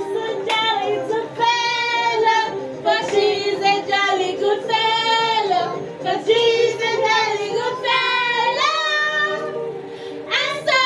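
A pop song with high sung vocals playing through a television's speakers. The vocal phrases are each about a second long, bending in pitch, with short breaks between them, and people are singing along.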